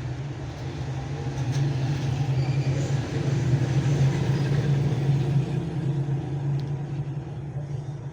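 Motor vehicle engine running with a steady low hum, growing louder toward the middle and fading again, as street traffic passes.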